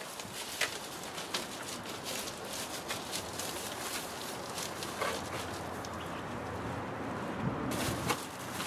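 Foil bubble insulation rustling and crinkling as it is handled and pressed up against the van roof, with scattered sharp clicks and crackles.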